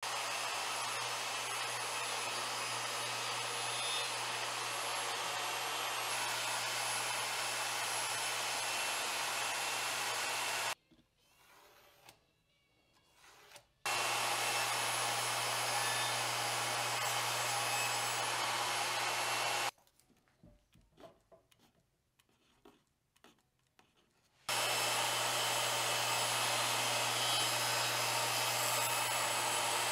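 Table saw running while plywood is ripped into strips. There are three long stretches of steady motor and blade noise with a constant low hum, the first ending about 11 seconds in and the last starting about 24 seconds in. Between them are quiet gaps with a few faint knocks.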